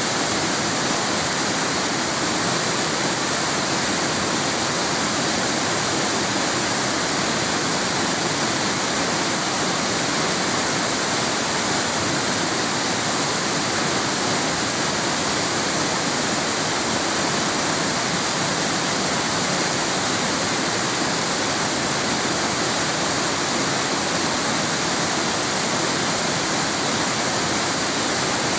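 A waterfall, a steady, unbroken rush of falling water.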